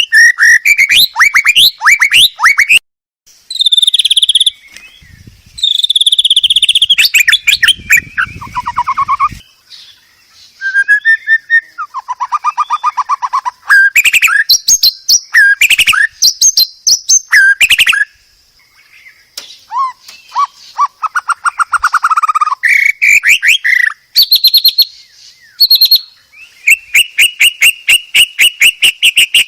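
White-rumped shama (murai batu) singing a loud, varied song: rapid runs of repeated notes, trills and clear sliding whistles, broken by a couple of short pauses.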